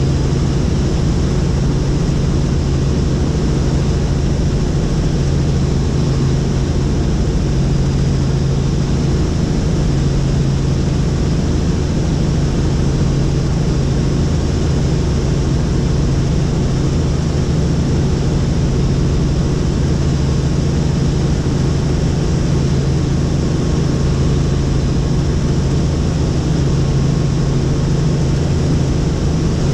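Helicopter in flight, heard from inside the cabin: a steady, loud mix of engine and rotor noise with a strong low hum.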